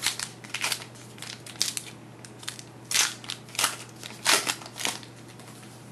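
A trading card pack's wrapper being torn open and crinkled by hand: a string of sharp crinkles and rips, loudest about three seconds in and again near four and a half seconds.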